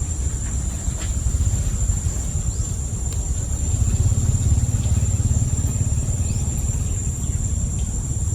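Steady high-pitched drone of insects over a heavy low rumble that grows louder in the middle, with a few faint short chirps.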